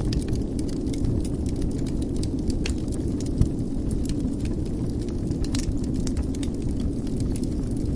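Wood fire burning in a fireplace: a steady low rumble with scattered small crackles and snaps, and one sharper pop about three and a half seconds in.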